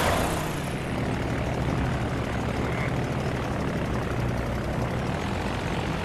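A propeller biplane's engine droning as the plane sweeps low overhead. It opens with a sudden loud rush, then settles into a steady engine drone with an airy rush of flight over it.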